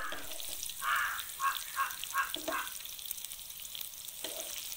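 Chicken pieces sizzling in hot oil in a nonstick frying pan as a metal spatula moves and lifts them, a steady fine crackle. Short bird calls repeat several times in the background.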